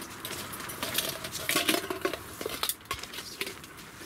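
Snow Peak titanium pot set clinking and clanking as it is taken out of its mesh stuff sack and handled, the nested pots, lid and wire handles knocking together. The loudest clanks come about a second and a half in, with a brief light metallic ring.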